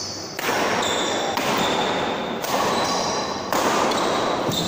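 Badminton doubles rally in a hall: rackets striking the shuttlecock about once a second, each hit ringing on in the hall, with short high shoe squeaks on the court floor.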